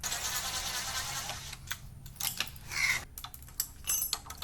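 Work on metal caster hardware: a steady rasping for about the first second and a half, then scattered light clicks and metallic taps.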